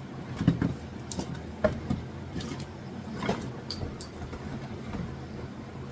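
A few light knocks and clatters, as of objects being handled on a bench, the sharpest about half a second in, over a steady low hum.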